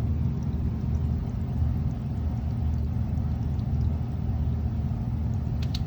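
Steady low rush of water leaking into the basement through the stone foundation from a broken underground downspout drain, with a short click near the end.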